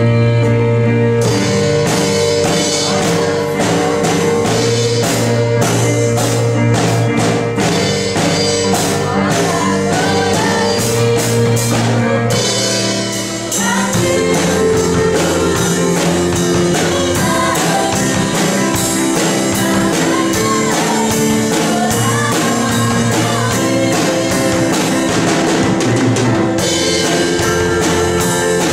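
A worship song with girls singing over a band with a drum kit keeping a steady beat. The backing thins briefly about halfway through before the band comes back in.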